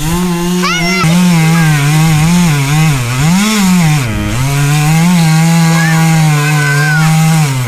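Chainsaw running at high revs while cutting wood, its pitch wavering and dipping sharply and recovering a couple of times around the middle.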